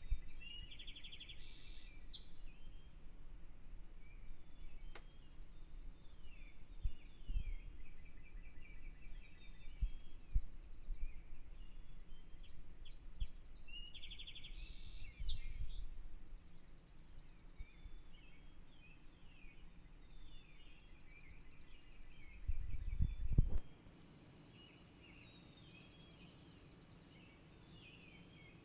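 Several songbirds chirping and singing in rapid high trills and short repeated phrases, overlapping throughout. Low rumbling thumps come now and then, the strongest about 23 seconds in.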